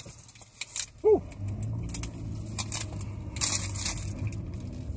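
Crunchy biting and chewing of a breaded Monterey Jack cheese chicken snack, with its paper wrapper crinkling, as sharp scattered clicks. A short 'mm' hum of approval about a second in, then a low steady hum under the chewing.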